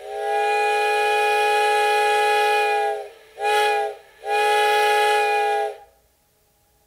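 Steam locomotive's chime whistle sounding a chord of several notes over a hiss of steam: one long blast, a short one, then another long blast.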